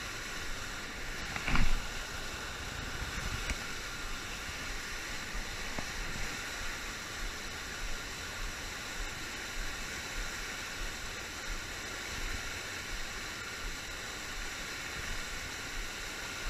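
Steady rushing of river water pouring over a low-head dam into whitewater, with gusty wind buffeting the microphone. A brief thump about a second and a half in.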